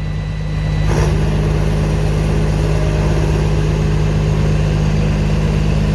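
Engine picking up speed about a second in as it is given throttle, then running steadily at the higher speed.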